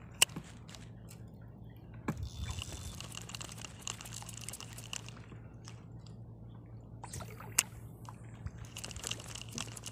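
Water lapping and sloshing against a small boat over a low steady hum, with a few sharp clicks from handling a baitcasting reel and jigging rod, one right at the start and another near the end.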